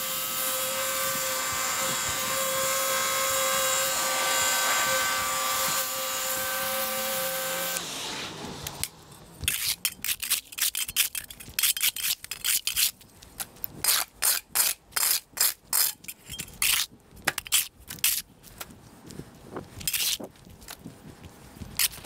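Ryobi pressure washer running with the steady hiss of the spray, then shutting off about eight seconds in, its motor whine sliding down in pitch as it stops. A run of irregular sharp scrapes and rubbing clicks follows.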